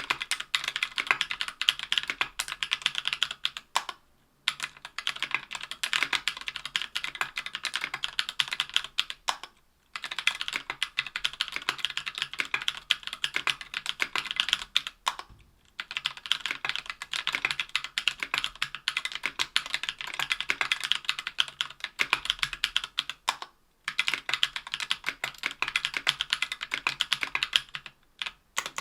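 Typing on a mechanical keyboard: a Tofu 60% aluminium-case board with lubed Durock Anubis tactile 65g switches, an aluminium plate and GMK keycaps. The keystrokes come fast and steady, in runs broken by a few brief pauses.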